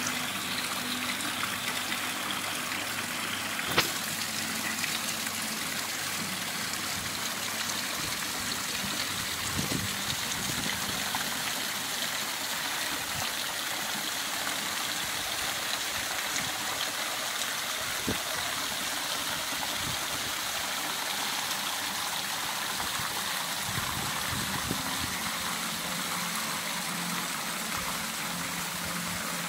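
Water pouring off artificial rock waterfalls and splashing steadily into a pool, with a single sharp click about four seconds in.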